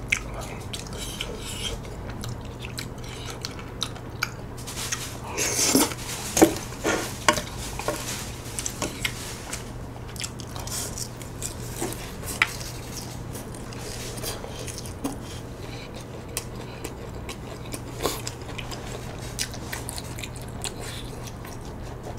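Close-miked eating: chewing and biting with wet mouth sounds, and chopsticks clicking against a bowl and cutting board as food is picked up. A louder, longer noisy stretch comes about six seconds in, and a faint steady low hum lies underneath.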